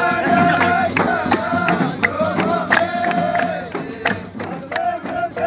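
A group of voices singing a greeting chant in unison, with long held notes, and sharp percussive hits between the lines.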